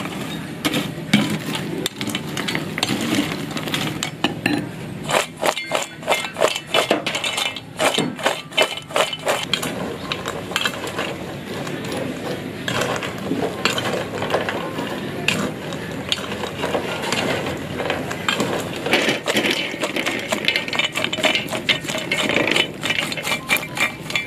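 Metal spoon stirring and tossing crisp fried macaroni in a stainless steel pot: repeated clinks and scrapes of spoon on pot and the dry rattle of the crunchy pieces, with a quick run of clicks from about five to ten seconds in.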